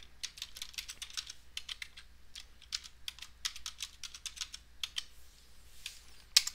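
Computer keyboard typing: quick, irregular keystroke clicks, with one harder keystroke near the end.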